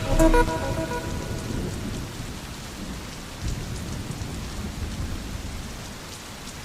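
Recorded rain falling steadily with a low rumble of thunder, slowly fading out. The last notes of music die away in the first moment.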